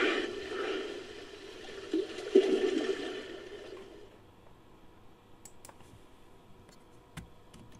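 Made-up creature call for the extinct tusked whale Odobenocetops, mixed from sperm whale and dolphin recordings: a noisy, hissing call with two short surges about two seconds in, fading away by about four seconds. A few faint, scattered clicks follow.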